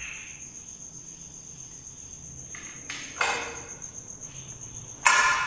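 Crickets trilling steadily at a high pitch, with two louder short scuffing noises, one about three seconds in and a stronger one near the end.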